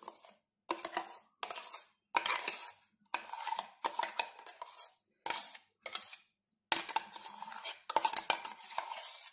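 Metal spoon scraping the inside of a steel mixer-grinder jar in a dozen or so short strokes, some with a faint metallic ring, as a thick blended mixture is scraped out into a bowl.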